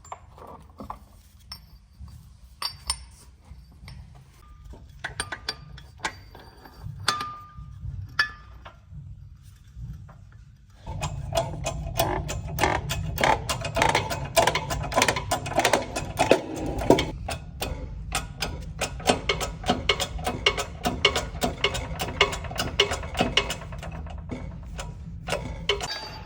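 Workshop tool noise: scattered clicks and knocks, then, about eleven seconds in, a fast, continuous mechanical clatter starts up over a low hum and runs on.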